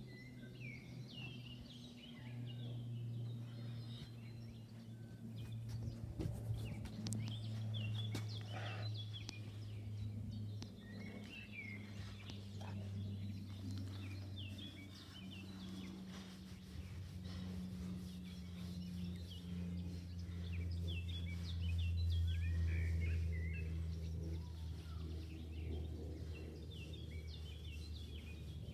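Small birds chirping and singing throughout, over a steady low hum that shifts pitch a few times.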